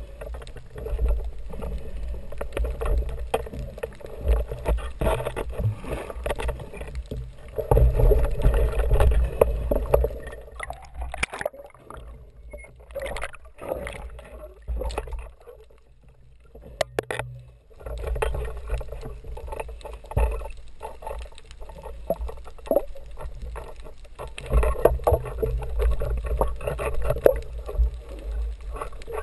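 Muffled underwater noise heard through an action camera's waterproof housing: water rushing past, with many irregular knocks and clicks as the speargun and diver move. It drops quieter for a few seconds in the middle.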